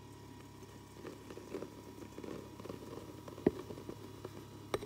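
Flour pouring into a stainless steel bowl: a soft, grainy patter, with a single light click about three and a half seconds in.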